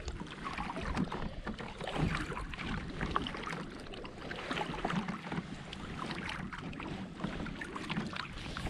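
Kayak paddling: the paddle blades dipping and pulling through lake water, with irregular splashes and drips, over a low rumble of wind on the microphone.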